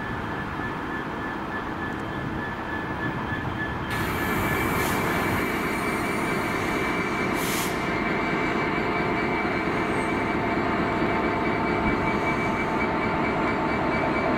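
Class 66 diesel locomotive, with its EMD two-stroke V12 engine, moving slowly along the platform. The engine runs steadily under rail noise and a thin, steady high squeal. The sound gets louder about four seconds in.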